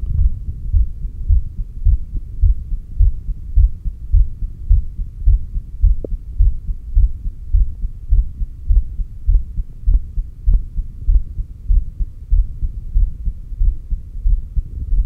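Human heartbeat picked up by a stethoscope on the chest apex: a steady, regular rhythm of low, muffled beats, with a few faint clicks in between.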